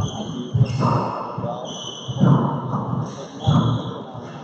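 Handball rally: the small rubber ball smacked by bare or gloved hands and slapping off the court walls and floor, several sharp smacks roughly a second apart.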